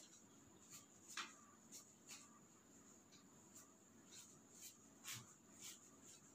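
Near silence with faint, irregular rustles and soft clicks of fabric being gathered and handled, as elastic is worked around inside a waistband, over a faint steady hiss.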